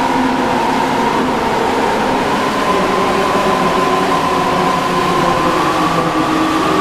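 An electronically altered emergency alert alarm tone: several steady tones over a loud hissing, rumbling noise, the highest tone slowly rising in pitch.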